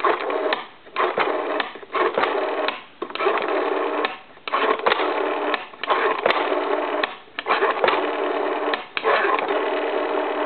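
Rotary telephone dial being pulled round and released digit after digit, giving about eight bursts of sound, each lasting roughly a second, with short pauses between them.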